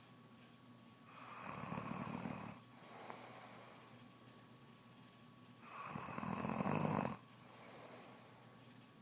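A woman snoring in her sleep, a snore that began with her pregnancy: two loud snores about four and a half seconds apart, each lasting about a second and a half, with quieter breathing between them.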